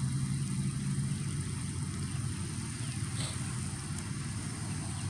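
Low, steady rumble of a vehicle engine running, with a held low tone that fades slightly.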